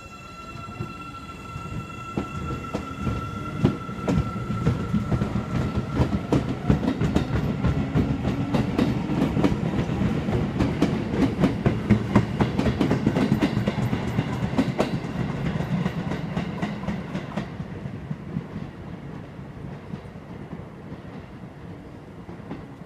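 Seibu 9000 series electric train running through the station, its wheels clicking over the rail joints above a low rumble. It grows louder to a peak about halfway through, then fades as the last cars go by.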